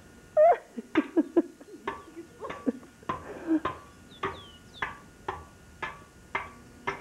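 A garden hoe chopping into the ground in quick, even strokes, each a sharp knock, about two a second from about a second in.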